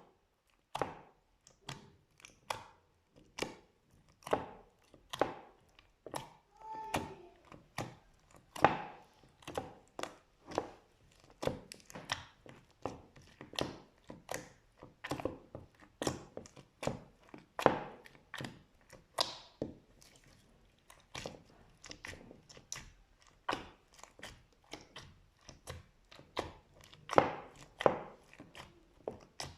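Slime being squeezed and pressed by hand, making a steady run of short wet clicks and pops at roughly two a second.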